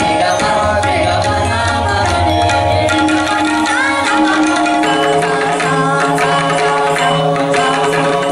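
Tabla being played in quick strokes over a held melodic accompaniment that shifts pitch about halfway through.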